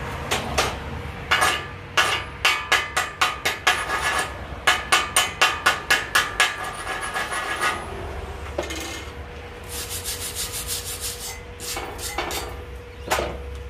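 Chipping hammer knocking slag off a fresh stick weld: a quick run of sharp metal taps, about three to four a second, then a short stretch of scraping and one last strike near the end.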